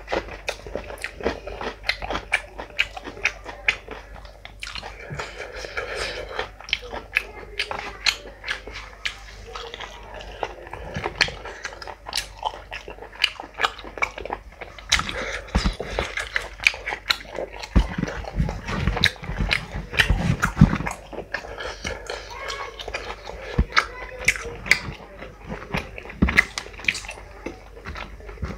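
A person chewing and smacking close to the microphone while eating curried meat and flatbread by hand: a dense, uneven run of wet mouth clicks and crunches.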